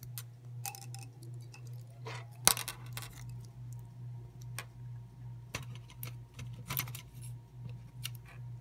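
A brass padlock, its plug and a key on a key ring being handled by hand: scattered light metal clicks and clinks, the sharpest about two and a half seconds in, over a steady low hum.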